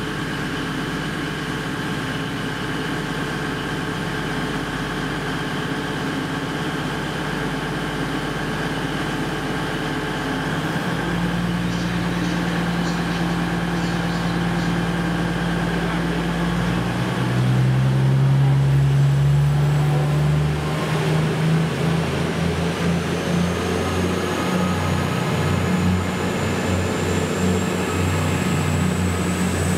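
East Midlands Railway Class 222 Meridian diesel-electric multiple unit, its underfloor Cummins diesel engines idling steadily while it stands at the platform. The engines then power up in two steps as the train pulls away. A slowly rising whine builds as it gathers speed.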